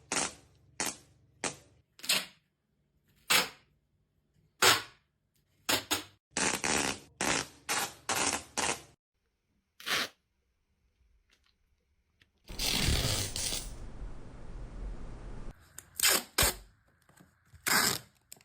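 A string of short, sharp noises at irregular intervals, with a louder burst of hiss about twelve seconds in that trails off over the next few seconds.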